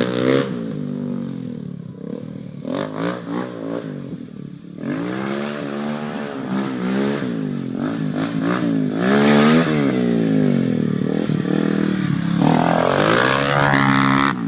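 Yamaha Raptor 350 ATV's single-cylinder four-stroke engine revving up and down over and over as it is ridden, its pitch rising and falling with the throttle. Near the end it climbs in one long rise.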